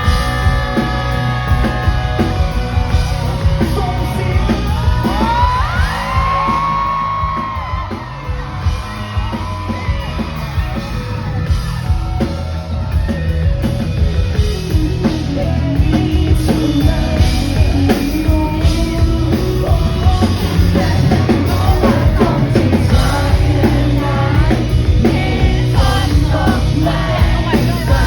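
Live pop-rock band playing a song, a sung vocal line over loud bass and drums, recorded from within the concert audience.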